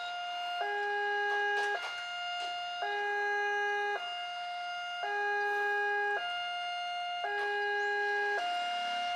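Railway level-crossing warning alarm sounding: an electronic two-tone signal that alternates evenly between a single higher tone and a lower two-note chord, each held about a second.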